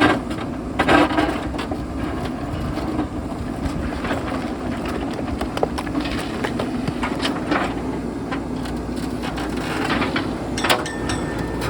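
JCB backhoe loader's diesel engine running steadily under load, with stones knocking and scraping against the bucket now and then; a sharp knock near the end.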